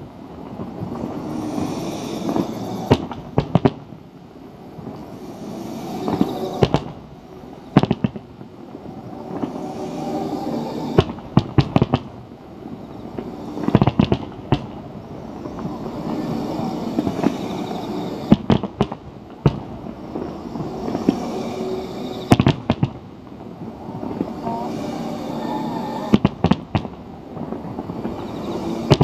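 Aerial fireworks shells bursting in rapid volleys. Clusters of sharp booms come every few seconds, with a continuous wash of sound between them.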